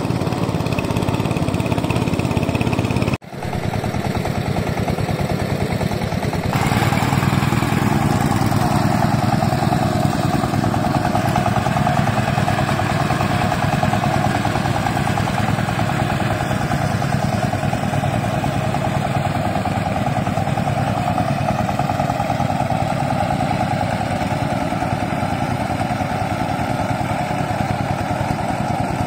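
Small engine of a mini power tiller running steadily as it tills wet paddy mud. The sound drops out briefly about three seconds in and changes tone a few seconds later.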